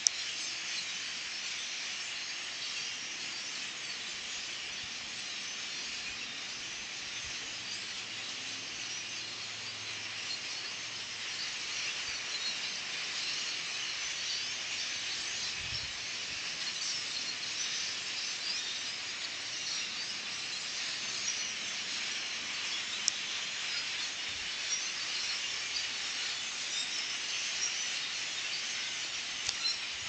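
A large migrating flock of birds calling all at once: a dense, unbroken chatter of many small calls, growing slightly louder partway through, heard through a cell phone's microphone.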